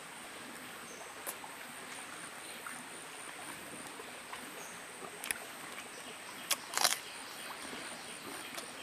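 Eating sounds from a man chewing a mouthful of rice and meat: a few short smacks and crunches, the loudest pair about seven seconds in, over a steady outdoor background with a constant high-pitched whine.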